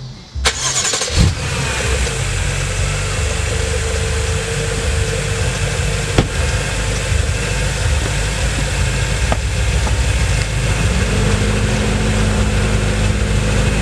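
BMW F10 M5's twin-turbo V8 starting from cold about half a second in, then idling steadily; its tone shifts slightly about eleven seconds in.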